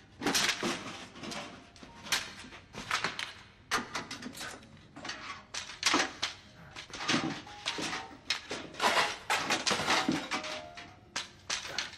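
Mops, a broom and other cleaning gear clattering and rustling in a cramped closet as they are pulled out and shoved aside: a quick, irregular run of wooden knocks, bumps and cloth rustles.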